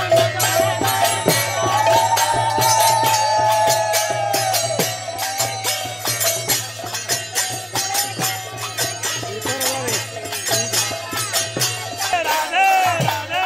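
Devotional kirtan music: a voice holding long wavering notes over a fast, even clatter of hand cymbals and jingling clappers.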